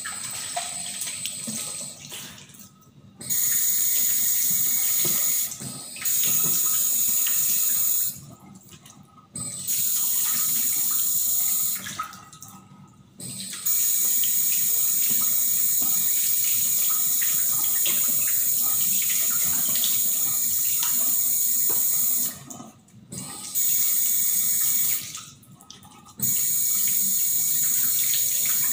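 Tap water running into a ceramic vessel sink while soapy hands are rinsed under it. The flow stops and starts several times, with one long run of about eight seconds, and quieter wet splashing of the hands comes in the pauses.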